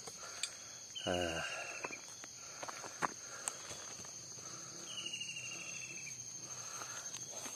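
Insects buzzing steadily in one continuous high note, with a few soft clicks and rustles about three seconds in.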